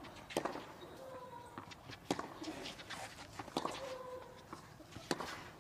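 Tennis rally on a clay court: a racket strikes the ball four times, about every second and a half, as the ball is hit back and forth.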